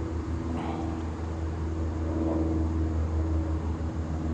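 Honeybees buzzing in a steady drone around an open hive, over a steady low rumble.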